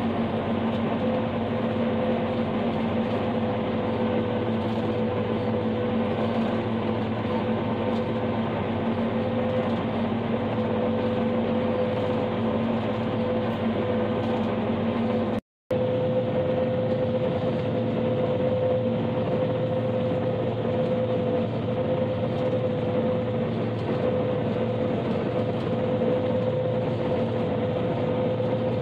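New Holland FX28 self-propelled forage harvester chopping standing corn, heard from inside the cab: a constant drone of engine and cutterhead under load with a steady hum. The sound cuts out completely for a moment about halfway through.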